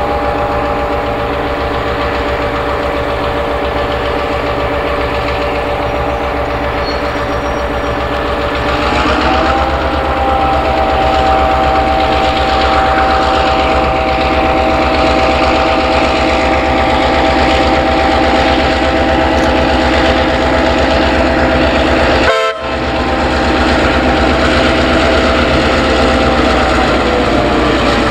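Diesel locomotive running with a steady whine over a low throb. The note rises about nine seconds in and drops back near the end, and the sound breaks off briefly a little after twenty-two seconds.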